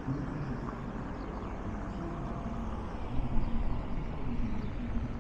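Outdoor street ambience: a steady low rumble with faint distant voices and a brief swell about three seconds in.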